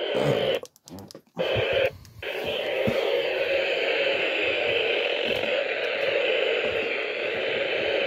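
Radio receiver hissing static through its small speaker, with no station coming through. It cuts in and out a few times in the first two seconds, then holds a steady hiss.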